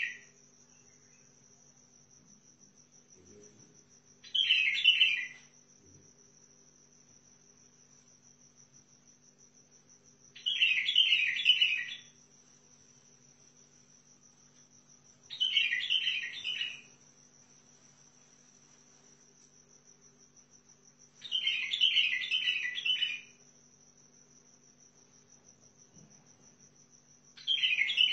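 White-eared bulbul singing short phrases of several quick notes, each lasting one to two seconds and repeated about every five to six seconds. A steady high-pitched trill like a cricket's runs underneath.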